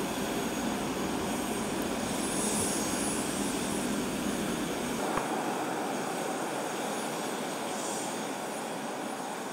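The small turbojet engines of a subscale research jet running steadily on the ground: an even rushing noise with a thin high whine on top. About halfway through, the sound turns thinner as its lowest rumble drops away.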